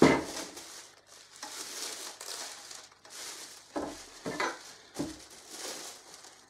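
Plastic packaging film crinkling and rustling as it is handled and pulled off, in uneven bursts with a loud rustle at the start and a few sharper crackles around the middle.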